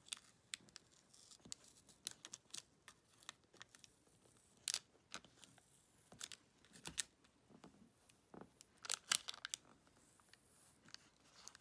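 Transfer tape and a vinyl stencil being rubbed down and peeled by hand on a wood slice: faint, irregular crinkling, ticking and tearing sounds. The loudest are about five seconds in and around nine seconds.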